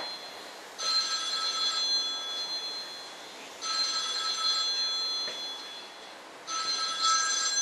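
Telephone ringing: three electronic rings, each about a second long and made of several steady tones, repeating about every three seconds.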